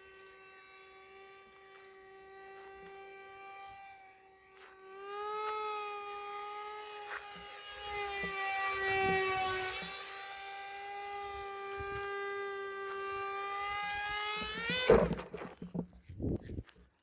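Homemade RC boat plane's electric motor and propeller whining steadily with a buzzing tone, its pitch wavering and rising as the throttle changes. About fifteen seconds in there is a sudden loud noise, followed by irregular knocks.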